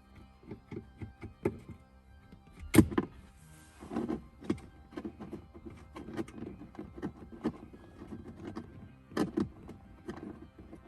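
Irregular clicks and knocks of plastic dashboard trim and tools being handled, with one loud thunk about three seconds in, over faint background music.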